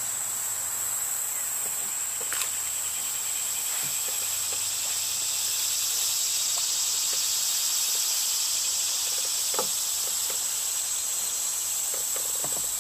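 A chorus of cicadas droning steadily in the summer trees, one continuous high buzz. A couple of faint clicks from handling gear in the kayak.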